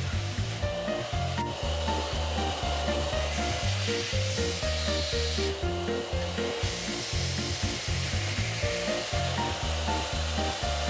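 Background instrumental music with a moving bass line and short melody notes, over a steady hissing noise.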